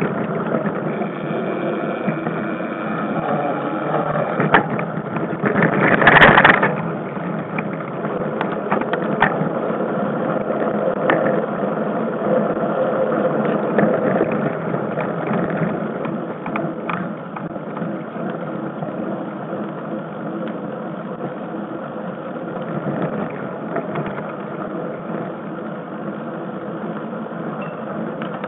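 Mountain bike ridden fast down a dirt forest trail, heard from a camera riding along: a steady rumble of tyres on the dirt and rattling of the bike, with scattered knocks and a louder rough rush of noise about six seconds in.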